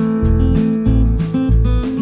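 Background music: strummed acoustic guitar with a low bass note about twice a second.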